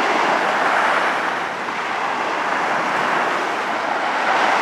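Distant jet engine noise from a Northrop B-2 stealth bomber's four turbofans as it flies past: a steady rushing sound with no distinct whine, swelling slightly near the end.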